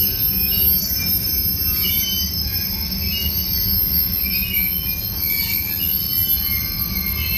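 Freight train of covered hopper cars rolling past, its steel wheels squealing on the rails in many short high squeals over a steady low rumble, with a thin high whine throughout.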